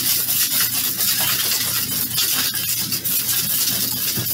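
Metal cocktail shaker shaken hard with small pebble ice inside, a dense, continuous rattle of ice against the tins. This is the wet shake of an egg-white cocktail, done after the dry shake.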